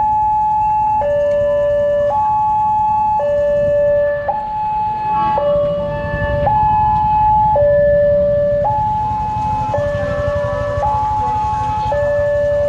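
Level-crossing warning alarm sounding while the barriers are down for an approaching train: an electronic two-tone signal that alternates high and low, each tone lasting about a second.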